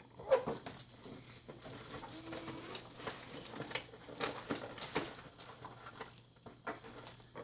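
Plastic toy packaging crinkling and tearing in dense, irregular crackles as small blind packs are opened by hand.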